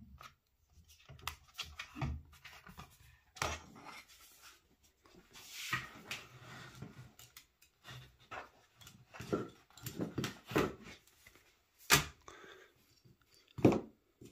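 Hands handling a 3D printer's flexible build sheet and printed plastic parts: irregular rustling, scraping and clicks, with two sharp knocks near the end.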